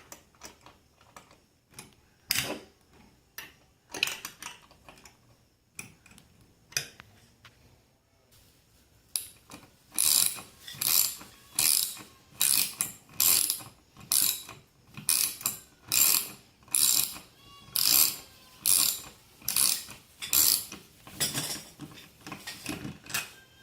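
Ratchet wrench tightening the bolts that hold a ceiling fan's mounting bracket: scattered clicks at first, then from about nine seconds in a steady run of ratcheting strokes, a little more than one a second.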